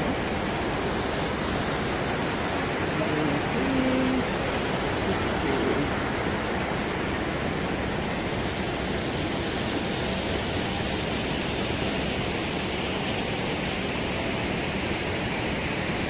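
Steady rushing hiss of a large plaza fountain's water jets and falling spray, with city traffic mixed in.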